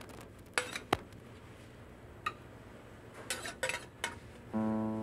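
A few light, separate clinks of a utensil against a china plate as food is arranged on it. A plucked acoustic guitar note comes in near the end.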